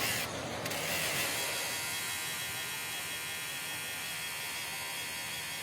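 Steady machine buzz and whir of a running electric motor, settling in about a second in and holding at an even level.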